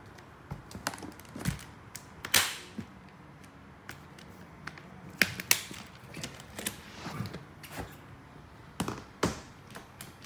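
Hardshell guitar case being handled: its lid shutting and metal latches and hardware clicking and knocking, a string of irregular sharp clicks with several louder snaps.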